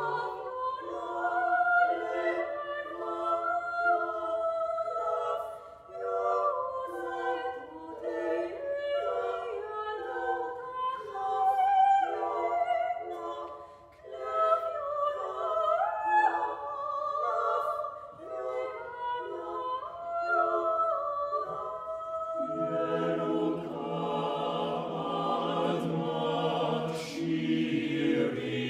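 Chamber choir singing a cappella, with several vocal lines moving against each other. At first only the higher voices sing. Low voices come in about three-quarters of the way through and the sound grows fuller.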